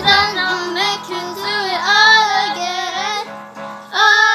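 A young girl singing solo, holding long notes that bend and slide in pitch, phrase after phrase.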